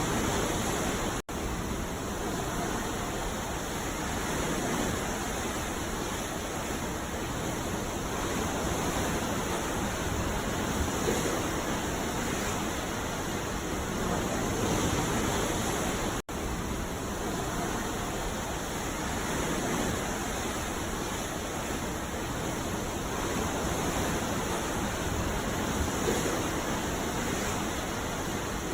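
Ocean surf: a steady rushing wash of breaking waves that swells and eases every few seconds. Twice the sound cuts out for an instant, about a second in and again about halfway through.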